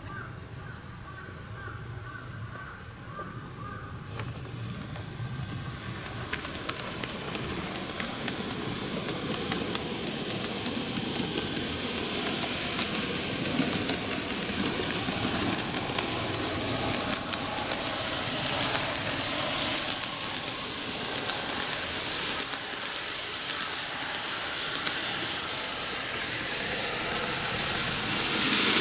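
N-gauge model trains (Keihan 1000 and 7200 series) running on track: a high motor and wheel whir with rapid irregular clicking of the wheels over the rail joints, growing steadily louder as a train comes round toward the camera.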